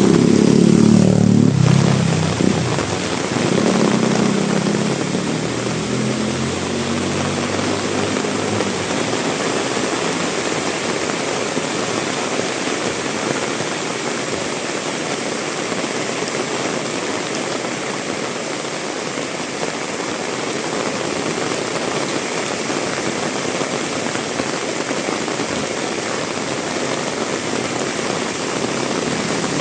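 Heavy rain falling steadily, with a motor vehicle's engine passing close by in the first few seconds and fading away.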